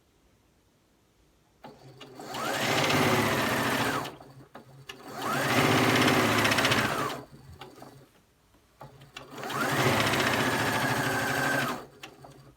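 Singer 6600C electric sewing machine stitching in three short runs, the motor speeding up at the start of each and slowing as it stops, with quiet pauses between.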